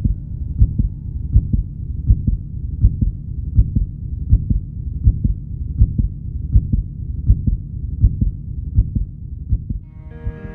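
Heartbeat sound effect: low, steady thumps, about four every three seconds, fading out near the end.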